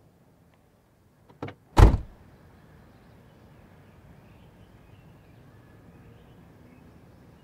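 A car door shutting: a short click, then one loud slam about two seconds in, followed by faint steady outdoor background noise.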